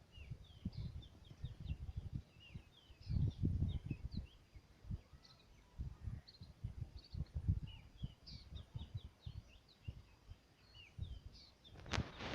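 Small birds chirping in quick short notes throughout, over irregular low rumbling surges, with a brief rustling burst near the end.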